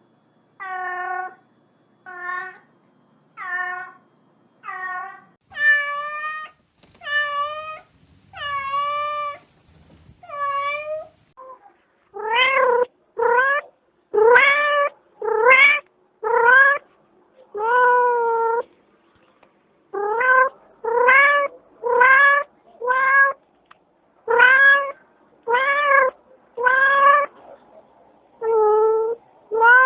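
Domestic cat meowing over and over, a meow roughly every second, in three runs of differing voice. Short, even meows come first, then longer meows that dip and rise in pitch, then louder meows that rise in pitch.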